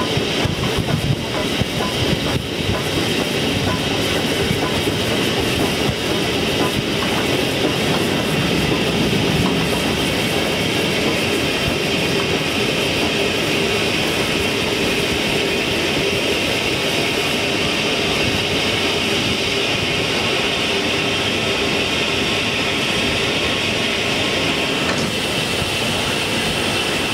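Steam-hauled train running slowly into a station, heard from a carriage window behind the locomotive: a steady rumble and clatter of wheels over the rails.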